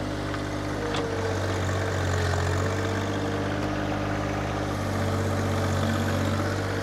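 John Deere 1025R compact tractor's three-cylinder diesel engine running steadily under load as the front loader digs into a pile of slid soil and lifts a bucketful, with a higher whine coming and going over the low engine note.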